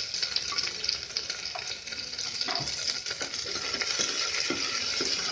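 Onion rings frying in hot ghee in an open pressure cooker, sizzling steadily while a spoon stirs and scrapes them around the pan.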